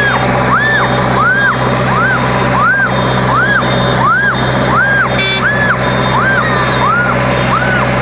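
A rising-and-falling electronic tone repeating just under twice a second over a steady low engine hum.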